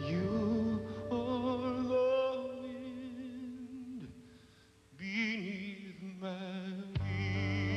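A man singing a slow ballad live, holding long notes with a wide vibrato over soft accompaniment. The phrase dies away about halfway through and a new one begins. A fuller, deeper band accompaniment swells in near the end.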